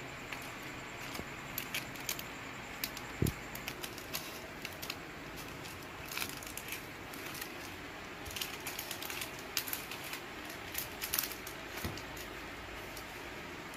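Plastic stamp packets crinkling and clicking as they are handled and laid out on a table, with a soft knock about three seconds in and another near the end.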